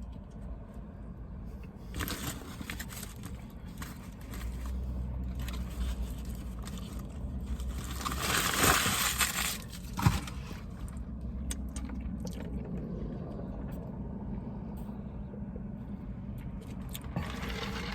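A person chewing a last bite of a grilled chicken wrap (tortilla, chicken, lettuce, cheese, ranch), with a steady low hum underneath. A louder noisy rustle comes about eight seconds in and lasts a second or two, followed by a sharp click.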